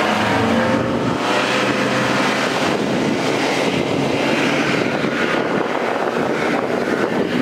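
Outboard motors running hard at high, steady revs during a RIB's acceleration run. Rushing water and heavy wind on the microphone come with it.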